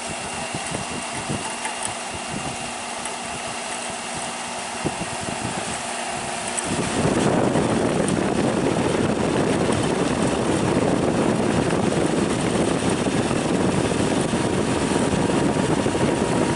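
Arctic King WWK05CM71N window air conditioner running on low: a steady fan hum with a few light ticks. About seven seconds in, a louder, deeper running noise comes in and holds steady, the compressor starting after the unit is switched to low cool.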